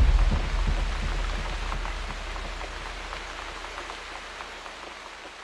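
Rain falling, an even hiss with scattered small drop ticks over a low rumble, fading out steadily.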